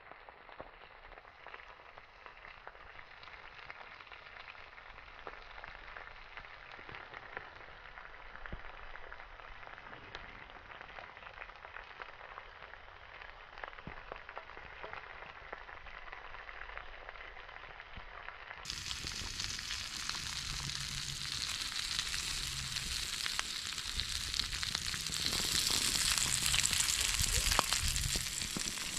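Fat sizzling and crackling in a cast-iron frying pan with sausage grease over a wood-fired twig stove, with fine popping throughout. About two-thirds of the way through it switches abruptly to a louder, brighter sizzle that builds toward the end.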